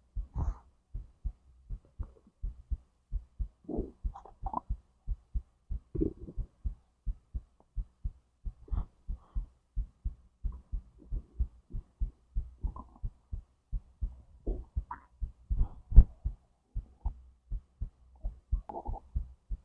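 Human heartbeat beating steadily as a regular train of soft low pulses. A few short stomach and intestinal gurgles are scattered between the beats.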